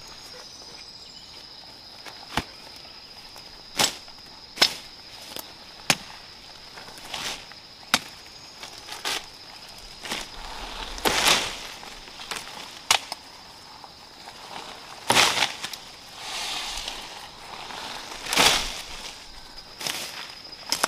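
A dozen or so sharp, irregular knocks and cracks, with several longer rustling swishes among them, from hand work in vegetation. A steady high insect drone runs underneath.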